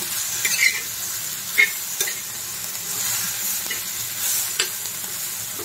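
Coarse green chilli thecha (chillies, peanuts and garlic) sizzling in oil in a pan while a metal spatula stirs and turns it over, with a few short scrapes of the spatula against the pan. This is the final stirring, after the coriander goes in and before the gas is switched off.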